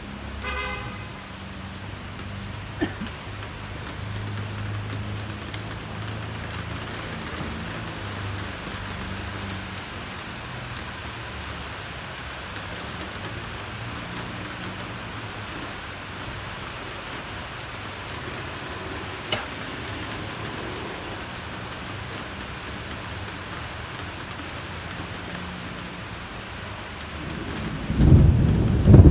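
Steady rain falling during a thunderstorm, with two sharp clicks of drops striking something. Thunder breaks loudly about a second before the end.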